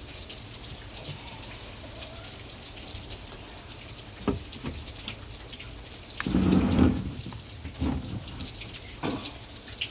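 Heavy rain pouring steadily, with a few knocks and a short, louder low rumble about six seconds in.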